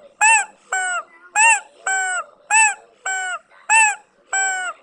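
Chicken crying out in a steady run of loud, pitched calls that come in pairs about half a second apart: an arching call followed by a falling one, eight calls in all.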